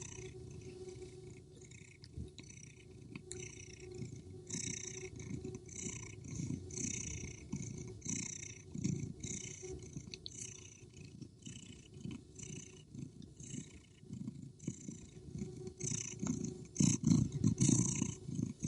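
Domestic cat purring, a low rumble that swells and eases with each breath about once a second, louder near the end.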